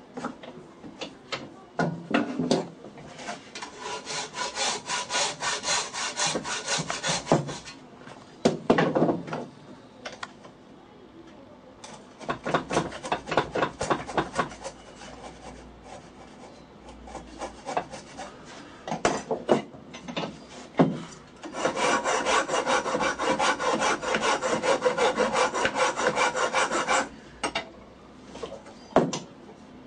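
Steel hand file rasping across a wooden part clamped in a bench vise, trimming it to fit. It goes in three runs of quick, even strokes, about four a second, with short pauses and a few single knocks between them.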